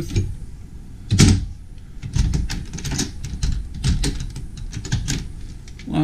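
Wooden cabinet door opened by its metal handle: one sharp knock about a second in, the loudest sound, then a run of light clicks and knocks as the door is swung and handled.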